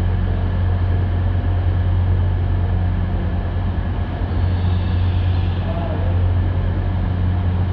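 Steady low hum of trains at a station platform: a standing multiple-unit train running, while a second train rolls slowly in toward the platform.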